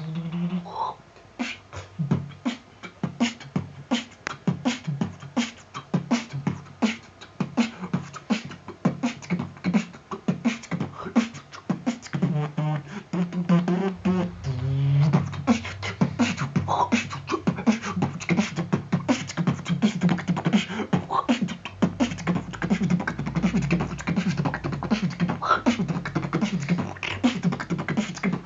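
Freestyle beatboxing: a fast run of vocal drum sounds, kicks, snares and hi-hat clicks made with the mouth, mixed with short sung or hummed pitched sounds. About halfway through, a low bass hum joins under the beat and drops lower later on.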